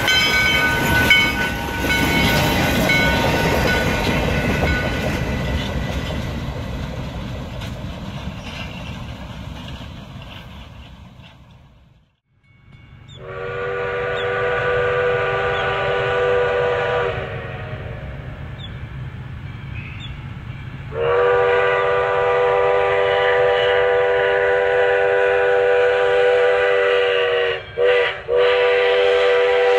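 Ex-FEC 4-6-2 Pacific steam locomotive No. 148 passing at a crossing, its rumble and wheel noise fading away. Then, as the train approaches, its steam whistle blows a chord: one blast of about three seconds, then a longer blast broken by two quick gaps near the end, the pattern for a grade crossing.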